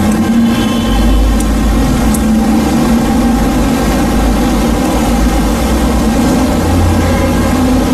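Steady low engine-like drone with a hum over it, unbroken throughout, and two faint light clicks between one and two seconds in.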